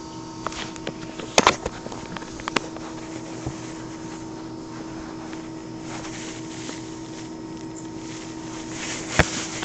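Steady electrical hum, with a few light clicks and knocks, the loudest about a second and a half in and again near the end.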